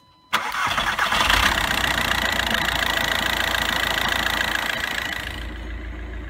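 2006 Volkswagen Jetta TDI's 1.9-litre four-cylinder turbodiesel started on a partly warmed engine: the starter cranks briefly, the engine catches, and it runs on, the sound dropping and quieting about five seconds in.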